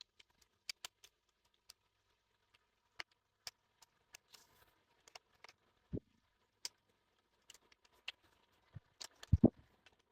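Scattered light clicks and taps of ceiling fan blades and their metal brackets being handled and fitted together. There is a low knock about six seconds in and two heavier thumps near the end.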